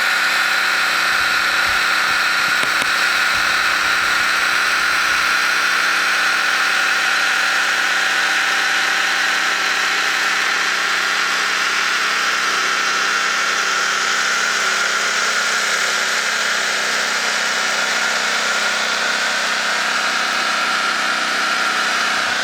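An engine running steadily at constant speed, with no revving or change in pitch.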